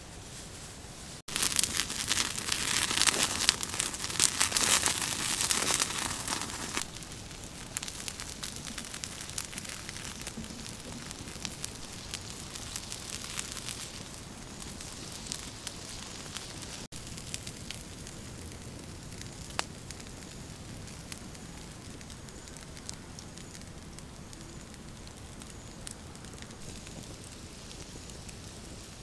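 Wood fire crackling and chicken hearts sizzling on a hot stone slab. A dense, loud crackle starts suddenly about a second in and lasts some five seconds, then settles to a quieter steady crackle with a few sharp pops.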